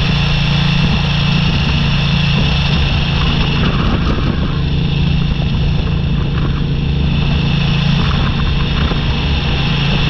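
Motorcycle engine running at a steady speed while riding a gravel road, with a constant rush of road and wind noise.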